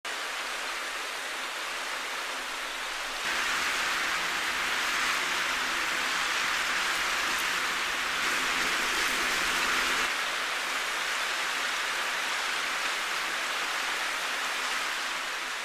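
Dense, steady rain-like pattering and whirring from a kinetic sound installation of many small, quickly moving parts. It grows louder about three seconds in and drops back a little about ten seconds in.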